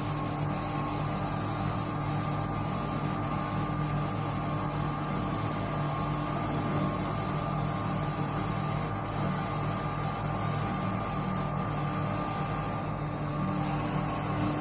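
Homemade CNC router running steadily, a high spindle whine over a constant low hum.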